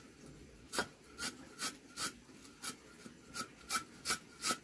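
Short rasping scrapes, repeated about two to three times a second.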